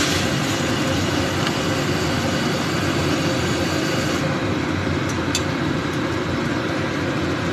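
Pot of vegetable and fish soup at a vigorous rolling boil, a steady bubbling rumble, with a light click of a ladle going into the pot about five seconds in.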